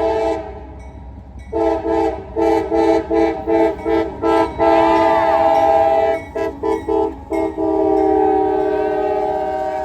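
Locomotive air horn sounding a chord of several tones in a horn show. It gives a short blast, then a rapid run of about eight short blasts, a long blast, four quick blasts, and finally a long held blast that slowly fades.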